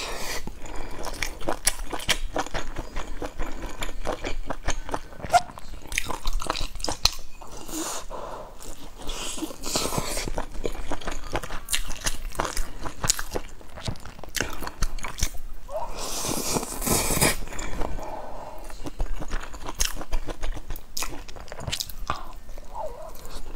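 Close-up eating sounds: biting into and chewing a piece of cooked meat, with many wet mouth clicks and small crunches. One longer noisy stretch comes about two-thirds of the way through.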